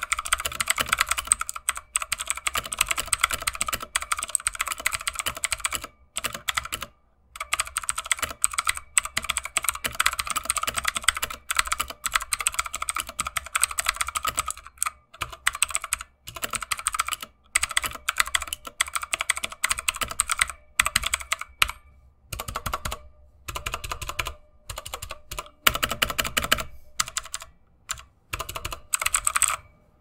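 Typing on a Redragon K552 Kumara mechanical keyboard with clicky Otemu Blue switches: quick, dense runs of sharp key clicks, broken by a few short pauses.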